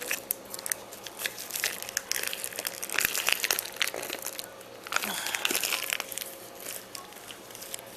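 Plastic bag crinkling and crackling in irregular bursts as it is worked by hand over a doll crier's bellows.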